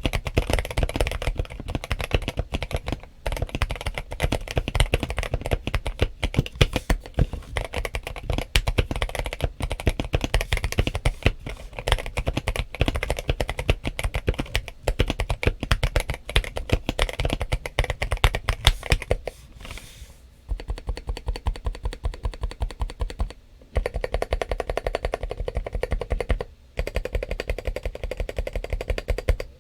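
Fast, continuous typing on a KBM1800 (James Donkey RS2) gasket-mount mechanical keyboard fitted with broken-in Kailh Box Cream switches and MA-profile keycaps. The case is foam-filled and tape-modded and the stabilizers are tuned. A short pause comes about two-thirds of the way through, with brief breaks after it.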